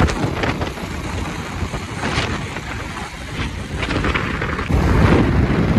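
Wind buffeting the microphone on a moving motorcycle, mixed with engine and road noise. It grows louder about five seconds in.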